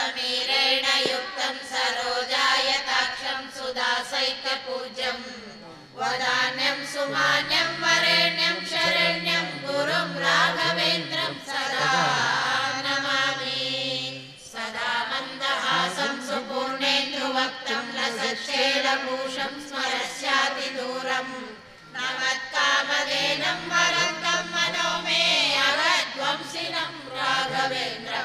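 Voices chanting a devotional hymn to Sri Raghavendra together, sung to a melody in long phrases with a short break about every eight seconds.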